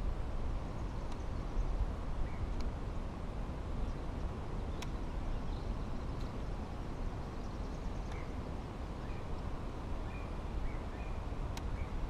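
Steady low rumble of outdoor background noise, with faint bird chirps now and then and a few sharp clicks.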